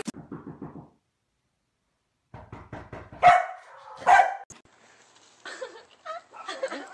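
A dog barking, with two loud barks a little under a second apart, among quieter yaps and clatter.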